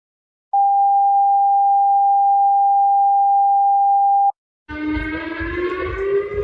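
Emergency alert alarm tone: one steady, unwavering pitch that starts about half a second in, holds for almost four seconds and cuts off sharply. Near the end a siren starts over a low rumble, its pitch rising.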